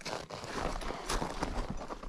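Climbers' crampon footsteps crunching in snow, several steps in a row, with a steady low rumble underneath.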